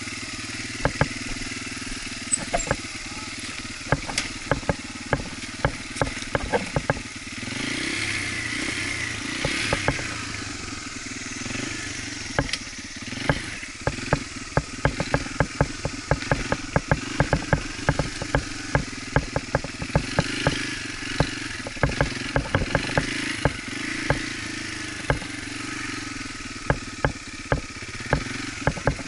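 Dirt bike engine running while riding, its revs rising and falling, with many sharp clicks and knocks throughout.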